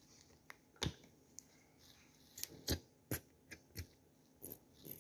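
Sauce being squeezed out onto a whole wheat flatbread: a scattered run of faint, short, sharp clicks and spurts, about ten in all.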